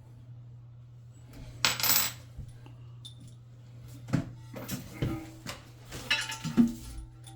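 Small metal parts and tools clinking and rattling as they are handled, with a short rustling burst about two seconds in and a run of sharp clinks in the second half, over a steady low hum.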